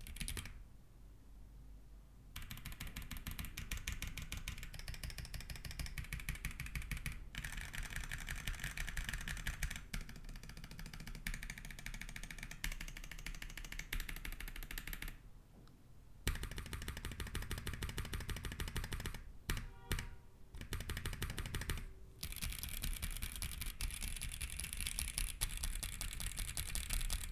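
Fast typing on a mechanical keyboard with Haimu Haku linear switches: a dense run of keystrokes broken by a few short pauses. The factory lube is thin, so each press carries a sharp spring ping.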